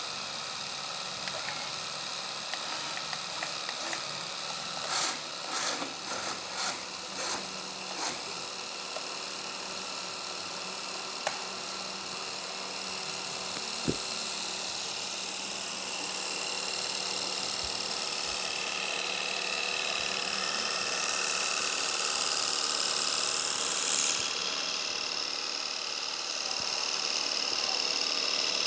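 Small electric motor whirring steadily, with a run of light clicks about five to eight seconds in. From about sixteen seconds the whine grows louder and higher-pitched.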